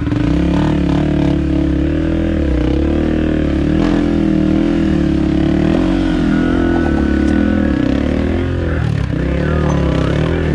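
Dirt bike engine revving up and down under load on a steep, slippery rock climb, its pitch wavering continuously as the throttle is worked.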